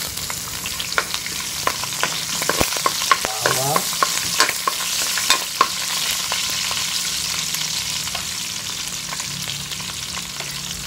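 Chopped garlic frying in hot oil in a metal wok, a steady sizzle. A metal ladle clicks and scrapes against the pan as it is stirred, many times in the first half, and then the sizzle goes on with fewer knocks.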